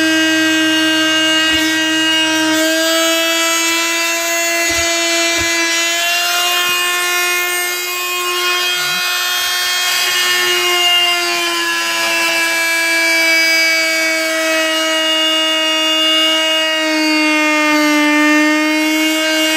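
Oscillating multi-tool running with a steady high-pitched buzz as it cuts along a line in an FRP (fiberglass-reinforced plastic) roof panel. Its pitch sags slightly a few times as the blade bites, most clearly near the end.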